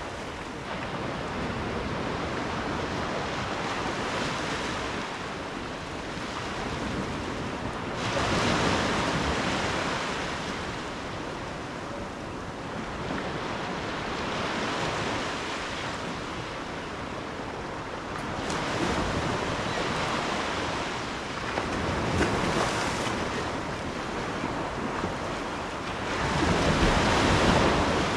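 Ocean waves breaking and washing up the shore: a continuous surf hiss that swells with each incoming wave, with louder surges every few seconds.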